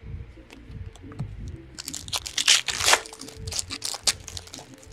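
A hockey card pack's wrapper is crinkled and torn open, with a denser tearing rip about two to three seconds in, amid light rustling and clicks of the wrapper and cards being handled.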